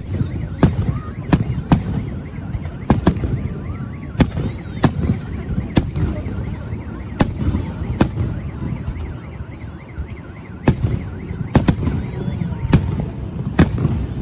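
Fireworks display: a fast, irregular series of sharp bangs from bursting aerial shells, about twenty of them, over a continuous low rumble of echoing booms.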